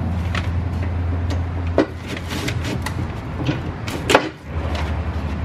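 Metal clinks and knocks as a brake caliper and hand tools are handled, with two sharper knocks about two and four seconds in. A steady low hum runs underneath.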